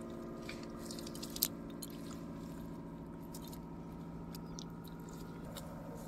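A steady, engine-like hum with a fine rapid pulse, and a few faint clicks over it.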